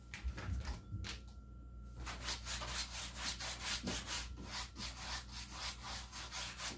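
A paintbrush scrubbing black paint onto a stretched canvas: a few separate strokes at first, then quick back-and-forth strokes, about four a second, from about two seconds in.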